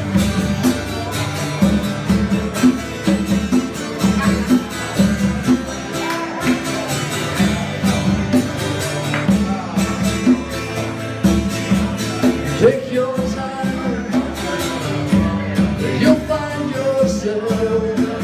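Live instrumental passage: guitar playing over congas beaten in a steady rhythm, with a few bent notes in the second half.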